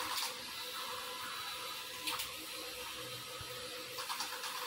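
Steady faint background hiss, with a few short scratchy clicks: one just after the start, one about two seconds in, and two near the end, as the wire leads of a small battery-powered model are handled.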